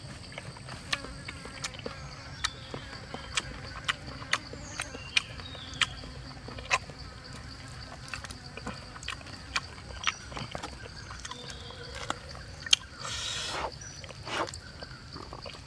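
Steady high-pitched drone of jungle insects, with sharp clicks every second or so over the first half, then fewer. About thirteen seconds in, a short rustling crackle as the crisp skin of a whole grilled chicken is torn apart by hand.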